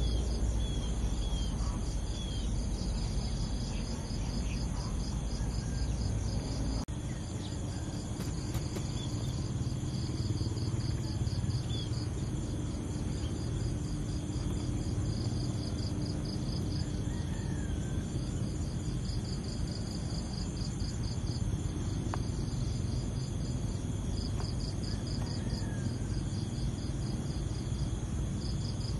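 Insects chirping in fast pulsed trains that break off and resume every few seconds, over a steady high-pitched insect drone and a low outdoor rumble.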